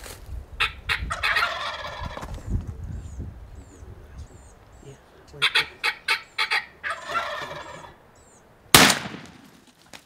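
Rio Grande wild turkey gobbling twice, a rapid rattling call about half a second in and again around five and a half seconds. Near the end a single shotgun blast, the loudest sound, as the gobbler is shot.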